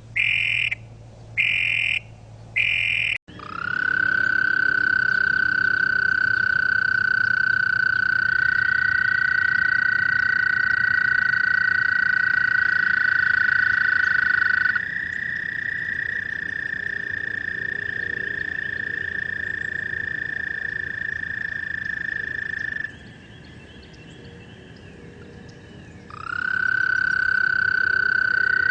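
Toads calling: a few short, evenly spaced calls, then long steady trills, two toads overlapping at slightly different pitches, each held for many seconds. They drop to a faint background for a few seconds near the end before a trill starts up again.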